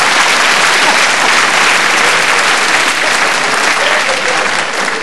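Live audience applauding a comedian's punchline, a dense, steady clapping.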